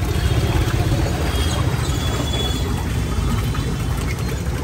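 Thick kadhi pouring in a steady heavy stream from a plastic drum into a large aluminium cooking pot.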